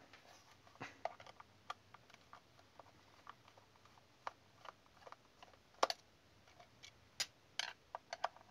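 Scattered faint clicks and taps: a screwdriver working the screws in the back of a DT9208A digital multimeter's plastic case while the case is handled. They come irregularly, with the sharpest click about six seconds in and a quick cluster near the end.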